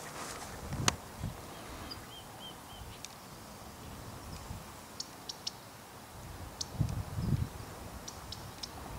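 Faint bird calls outdoors: a quick run of about five short high notes about two seconds in, then a few scattered thin chirps. Soft footsteps on dry brush about a second in and again near the end.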